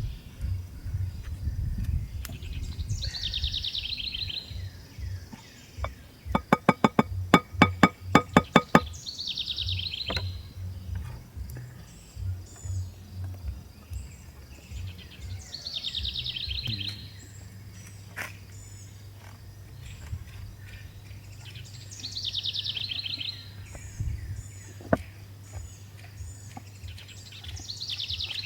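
A bird singing the same short, high, falling phrase about every six seconds. Around a quarter of the way in comes a quick run of about a dozen ringing pitched strikes, and a low rumble runs underneath.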